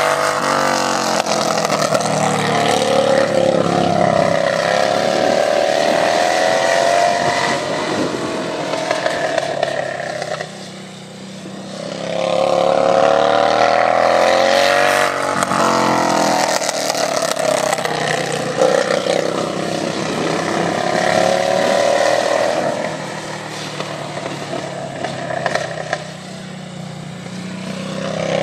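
Racing lawn tractor's engine running hard round a dirt oval: the pitch repeatedly drops off and climbs again as it slows for corners and accelerates out, and the sound fades twice as the tractor goes round the far side of the track and comes back.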